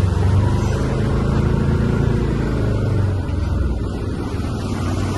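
A vehicle engine running steadily, with a continuous low drone.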